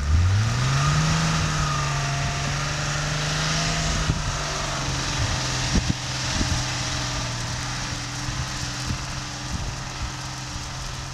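Off-road SUV engine revving up hard as the vehicle pulls away on snow, then holding steady revs, dropping to a lower steady pitch a few seconds in and slowly fading as it drives off, over a steady hiss.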